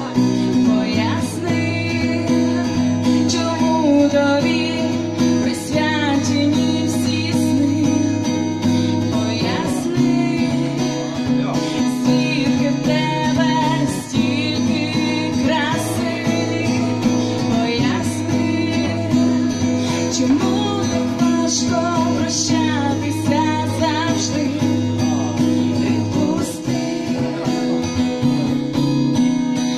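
A woman singing a song live to her own acoustic guitar accompaniment.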